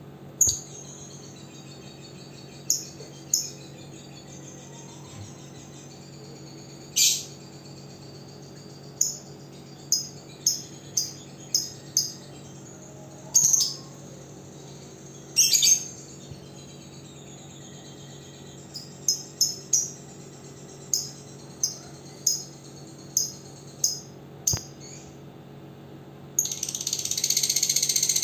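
Caged lovebirds giving short, shrill single chirps every second or so. Near the end comes one continuous shrill chattering burst of about two seconds, the loudest sound here.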